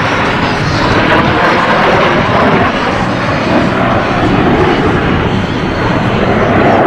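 Canadair CT-114 Tutor jets, each with a single turbojet, flying overhead in formation, giving a loud, steady rush of jet noise.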